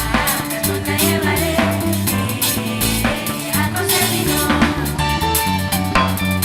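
A live band playing, with a drum kit keeping a steady beat over a bass line.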